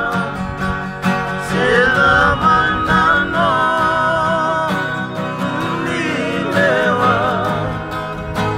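Several acoustic guitars strummed in a steady rhythm, with men's voices singing along.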